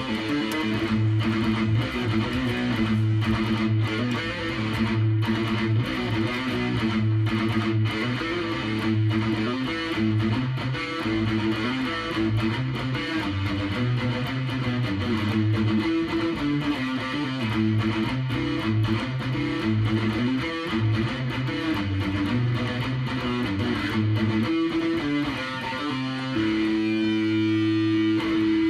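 Electric guitar played solo: a run of picked low notes and chord changes, settling into a held, ringing chord about two seconds before the end.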